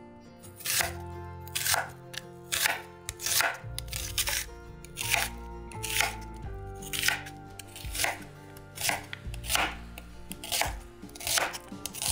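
Chef's knife slicing a peeled onion on a wooden cutting board, a steady cut about once a second, each stroke ending in a knock on the board. Soft background music runs underneath.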